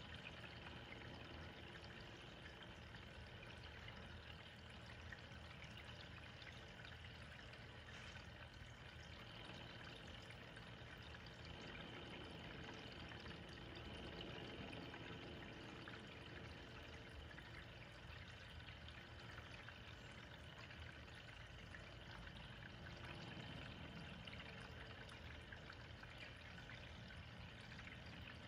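Faint, steady trickle of running water from a saltwater reef aquarium's water circulation.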